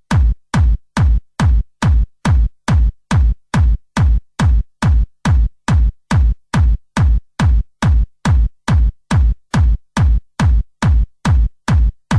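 Electronic dance music: a lone drum-machine kick drum beating steadily, a little over two beats a second, with nothing else playing.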